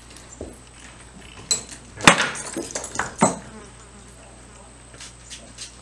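A saddled horse being led on a concrete barn floor: a handful of sharp hoof knocks mixed with clinks of metal tack, the loudest about two seconds in, the rest over the following second or so.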